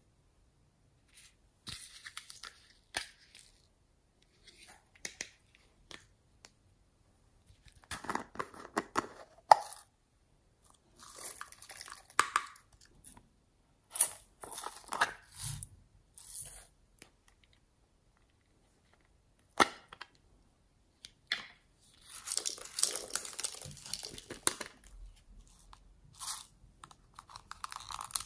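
Hands handling plastic containers and a squeezable toy over a bowl of slime: intermittent crinkling, crackling and scraping in bursts of a second or two, with a few sharp clicks between pauses.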